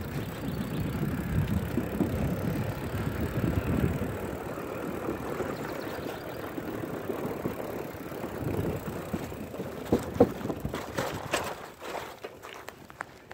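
Loaded touring bicycle rolling over a wooden footbridge: a steady rumble of tyres on boards, with the bike and its strapped-on gear rattling. A few sharp clacks and knocks come about ten seconds in.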